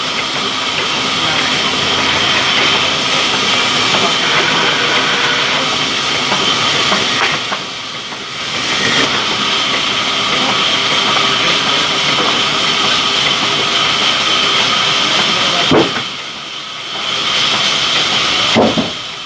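Sawmill saw cutting through a mango wood log: a loud, steady grinding hiss with a high ringing tone, easing briefly twice, with two sharp knocks near the end.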